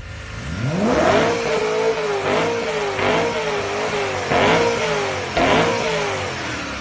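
BMW E92 M3's V8 being revved in the stall: the engine note climbs about half a second in, then rises and falls in a series of blips roughly once a second. Its quad exhausts are spitting foam and water.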